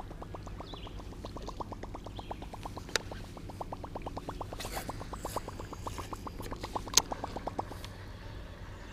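Fishing reel clicking rapidly and evenly as it is worked, with a sharper tick about three seconds in and a louder one about seven seconds in. The clicking stops shortly before the end.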